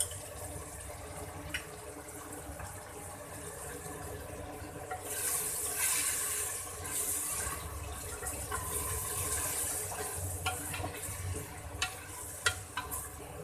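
Mutton with onions, herbs and yogurt frying in oil in an aluminium pressure cooker: a steady wet sizzle that grows louder about five seconds in, when a spatula starts stirring and scraping through it. Near the end the spatula knocks sharply against the pot several times.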